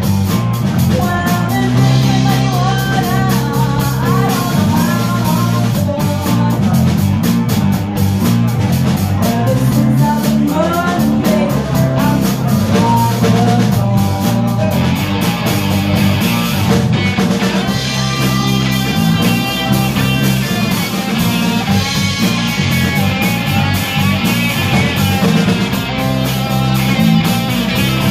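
Live rock band playing: electric guitars over bass guitar and drum kit.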